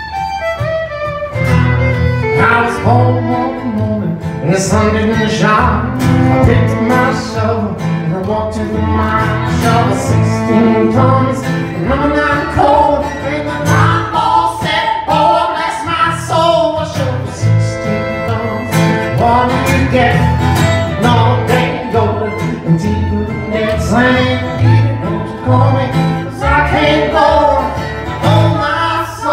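Live bluegrass-style acoustic band playing an instrumental passage: a fiddle carrying the lead over a strummed acoustic guitar and an upright bass keeping a steady beat.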